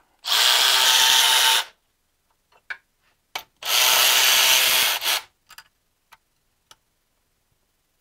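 Milwaukee cordless electric ratchet running twice, each run about a second and a half, spinning out the bolts on the BMW M54 camshaft timing sprockets, with small clicks of the tool and fasteners between the runs.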